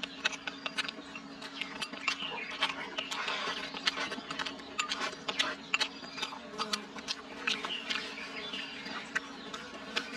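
A person eating close to the microphone: irregular chewing and lip-smacking clicks, with chopsticks scraping and tapping on a plate.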